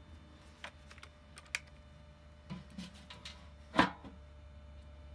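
Light clicks and taps of small metal parts and a cordless drill being handled against a sheet-metal blower housing, with one sharp louder knock near four seconds in. The drill does not run.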